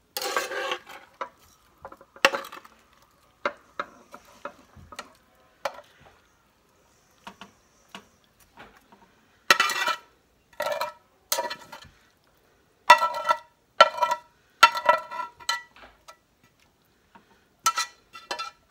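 A metal spatula scraping and tapping a beef and cabbage mixture out of a skillet into a casserole dish. Scattered clinks and scrapes come first. From about halfway there is a run of louder, ringing scrapes of metal on the pan.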